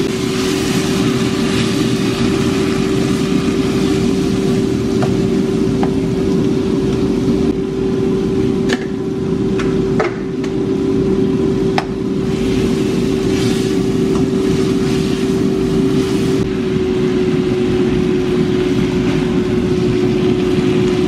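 Deer meat and green peppers sizzling in a nonstick frying pan as they are stirred with a spatula and wooden spoon, with a few sharp taps of the utensils on the pan. Under it runs a steady, loud hum from a motor with one constant tone.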